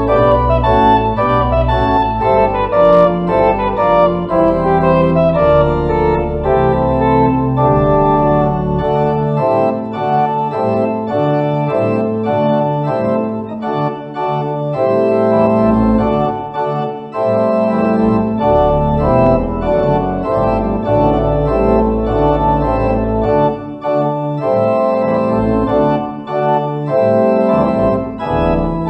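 Organ playing slow sustained chords. A deep bass line drops out for a few seconds twice, leaving only the higher notes.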